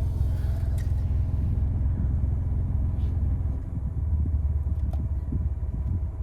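Car engine idling: a steady low rumble that turns rougher and more uneven about halfway through.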